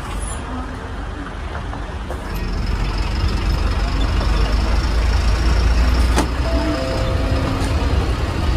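MSRTC BS6 sleeper bus's diesel engine and road noise, a continuous low rumble that grows louder about two seconds in, with a sharp click about six seconds in.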